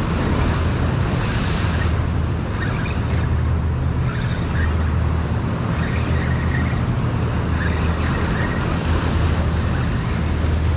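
Ocean surf breaking and washing over the boulders of a rock jetty: a steady rush that swells now and then, over a constant low rumble.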